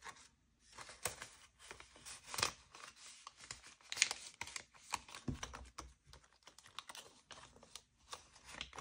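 Paper banknotes and cash envelopes being handled: irregular crisp rustles and light taps as bills are slipped into an envelope, with sharper crackles about two and a half and four seconds in.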